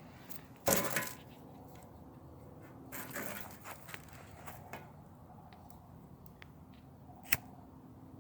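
Dry twigs and palm fronds being handled and broken while a fire is laid: a loud crunching rustle about a second in, another around three seconds, and scattered sharp snaps, the loudest near the end.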